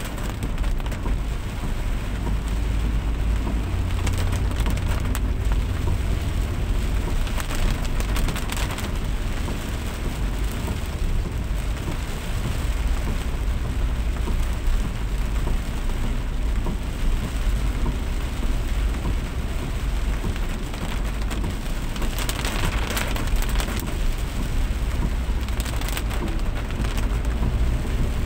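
Heavy rain falling steadily, with a strong steady low rumble underneath.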